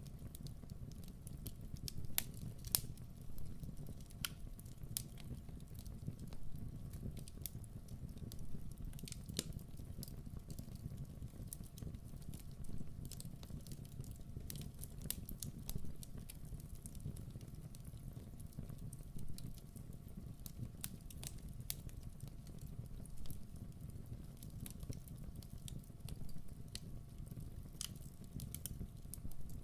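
Wood fire burning in a fireplace: a steady low rumble of the flames with irregular sharp crackles and pops scattered throughout.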